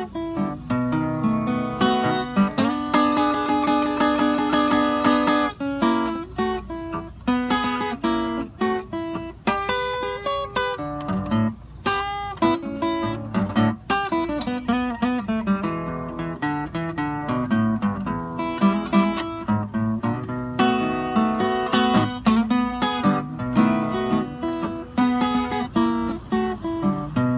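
Acoustic guitar playing an instrumental break in a country blues, picked melody notes and chords over a steady low bass note, with no singing.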